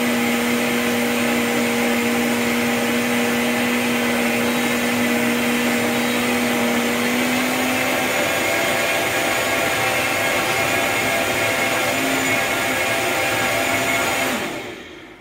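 A BioloMix 2200 W countertop blender's motor running at high speed while blending a green smoothie. About halfway through, its pitch shifts as the speed dial is turned, and near the end the motor winds down and stops.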